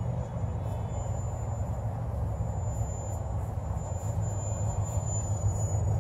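Small electric foam RC plane's 2205 2300KV brushless motor and propeller in flight, a thin steady high whine that grows a little stronger near the end, over a steady low rumble.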